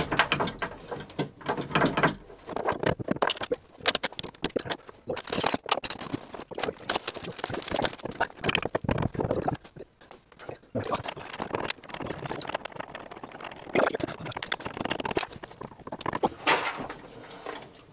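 Irregular metal clinks, clicks and knocks as the steering hardware on a sailboat's rudder post is worked and pried loose by hand.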